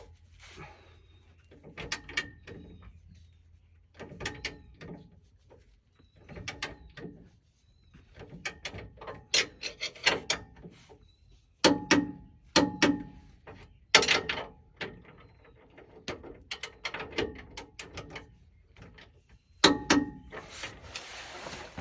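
Hand ratchet, a click-type torque wrench, ratcheting in short strokes as bolts are run down and torqued to 80 ft-lb. The clicks come in repeated bursts, some with a brief metallic ring.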